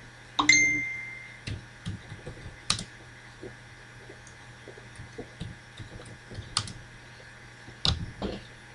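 Typing on a computer keyboard: scattered, irregular key clicks. About half a second in, a brief tone rings out and fades over about a second, the loudest sound here.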